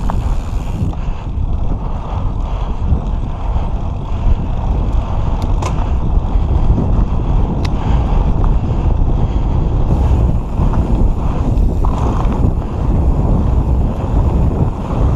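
Wind buffeting the microphone with a steady low rumble while a Santa Cruz V10 downhill mountain bike is ridden, with two faint clicks near the middle.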